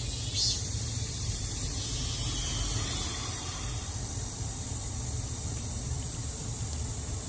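Cicadas buzzing steadily, with one loud, very high buzz starting about half a second in and cutting off suddenly at about four seconds, over a steady low hum.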